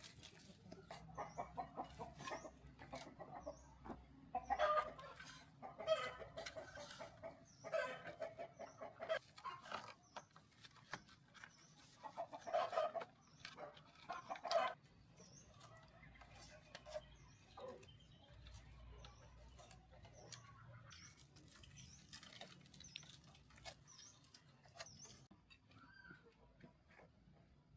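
Chickens clucking, with a run of louder calls in the first half and quieter clucking after.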